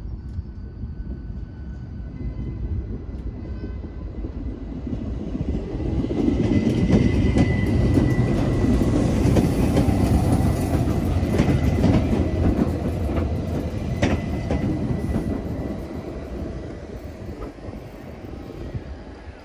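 Berner Oberland-Bahn electric regional train pulling out and passing close by, its wheels rumbling and clacking on the rails over a thin steady whine. It grows louder over the first several seconds, then fades as the train moves away.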